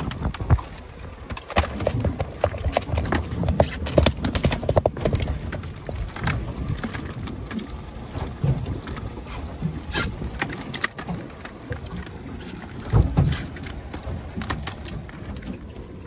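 Irregular knocking and clattering, with a few louder low thumps about thirteen seconds in.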